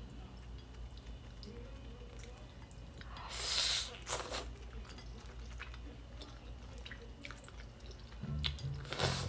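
Noodles being slurped: a long slurp about three seconds in, a short one right after, and another near the end, with small wet chewing clicks in between.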